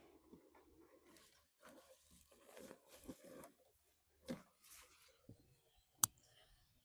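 Faint tearing and rustling in several short bursts, with one sharp click near the end.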